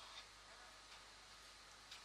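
Near silence: faint room hiss with a couple of soft, brief clicks.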